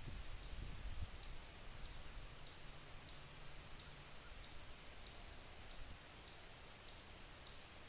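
A steady high-pitched insect drone over quiet outdoor air, with a low rumble in the first second or so.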